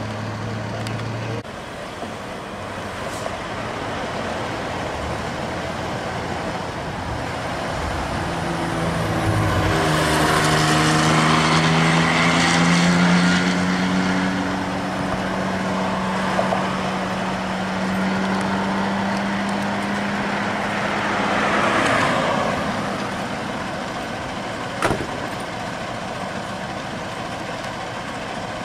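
A large road vehicle's engine growing louder and climbing in pitch as it accelerates, holding a steady note for several seconds, then fading, over steady street traffic noise. A single sharp click near the end.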